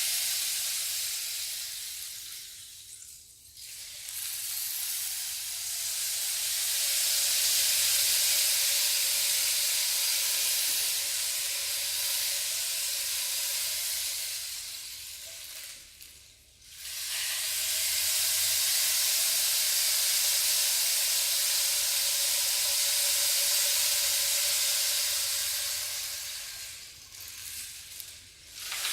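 Rain stick being tipped and turned: a long hissing cascade of falling filling that dies away and starts again when the stick is turned over, about every thirteen seconds, twice.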